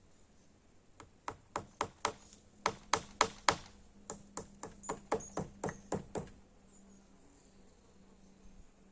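A hammer striking in quick runs of blows: about eighteen sharp, ringing knocks, three or four a second, starting about a second in and stopping after about six seconds. A faint steady low hum lies underneath.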